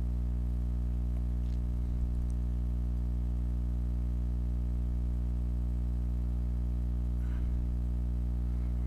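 Steady low hum with many evenly spaced overtones, unchanging in pitch and level.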